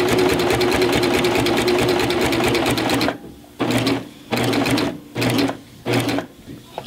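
Baby Lock serger running at speed on a 4-thread overlock seam, a rapid stream of stitches over a steady motor hum. About three seconds in it stops, then runs in four short spurts of half a second or so as it is eased up to a stop just short of the end of the seam.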